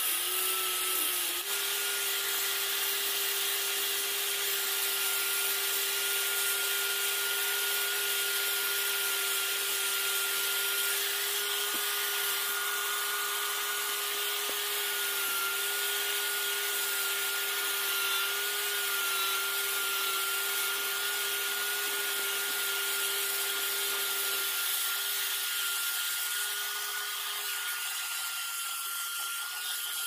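Angle grinder running steadily with a foam-backed sanding pad pressed against cast epoxy resin, giving a steady whine over the hiss of the pad rubbing the surface. The whine steps slightly higher in pitch about a second and a half in.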